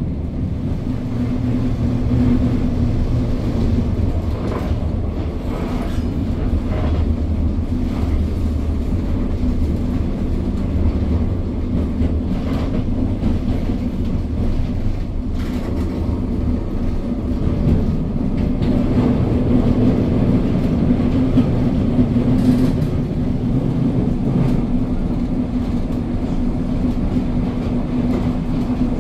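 Historic wood-bodied electric tram running on its rails, heard from inside the car: a steady low rumble with a constant hum, and a few short clicks and knocks from the running gear now and then.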